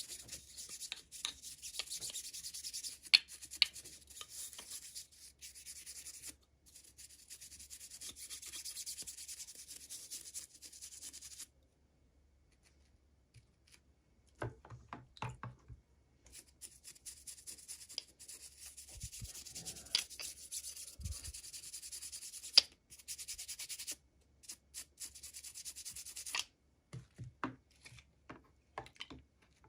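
Packaging being rubbed and scraped by hands, in stretches of rustling with scattered sharp clicks and taps. It stops briefly for a couple of near-silent seconds about halfway through.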